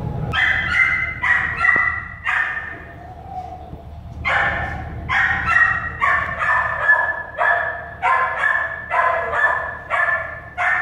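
Newborn American Staffordshire Terrier puppies squealing and whimpering while nursing. A few short high cries come in the first couple of seconds, then, after a brief pause, a quick run of about a dozen more.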